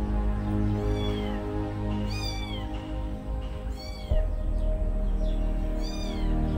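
A kitten mewing four times in short, high, arching calls, over background music of steady held notes.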